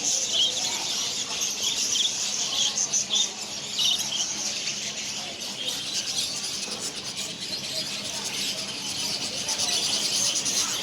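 Dense chorus of many small caged pet birds chirping and twittering at once, a continuous high-pitched chatter.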